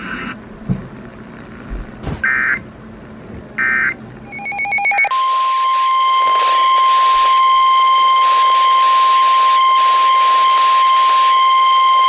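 NOAA Weather Radio emergency alert signal: short bursts of SAME digital header data tones in the first few seconds, then, about five seconds in, the steady single-pitch warning alarm tone starts. It marks the start of a new severe thunderstorm warning broadcast.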